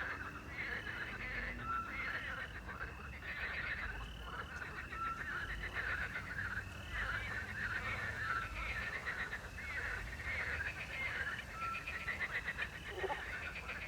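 A chorus of frogs croaking at night by a river, densely overlapping, with crickets chirping. A small owl's short whistled call repeats every couple of seconds through it.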